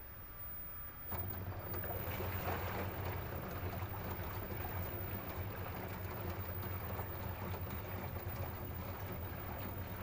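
LG front-loading washing machine's direct-drive motor and drum starting to turn about a second in, then running steadily with a low hum and a rushing whir.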